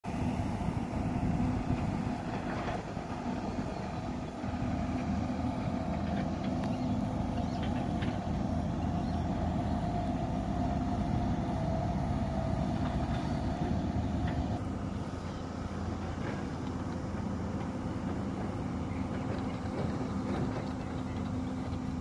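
Steady low mechanical hum, like an engine running nearby, holding an even pitch throughout, with a few faint clicks.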